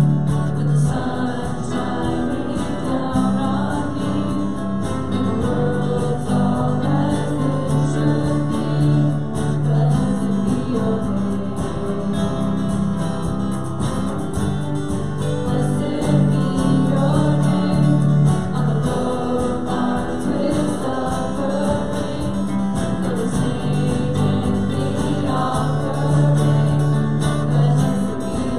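Group singing a gospel worship song with instrumental accompaniment, the voices holding long, sustained notes.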